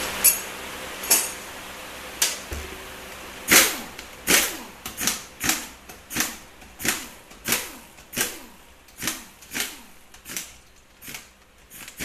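Handheld pneumatic wrench on an air hose run in short bursts, about two a second, each starting sharply and ending in a falling whine as the motor spins down, backing out the 8 mm valve body bolts of a Ford 4R75E transmission. A few sharp clicks come in the first two seconds before the bursts begin.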